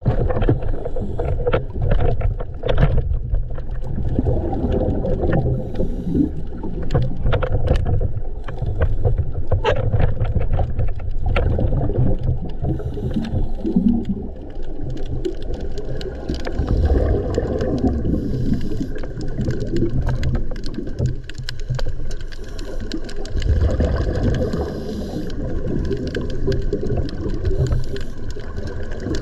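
Underwater sound through the camera's housing: scuba regulator breathing, with exhaled bubbles rumbling and gurgling in long swells, and many scattered sharp clicks.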